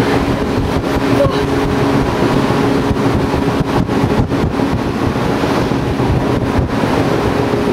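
Shinano Railway train running at a steady speed, heard from inside the passenger car: an even rush and rumble of the running gear with a steady hum underneath.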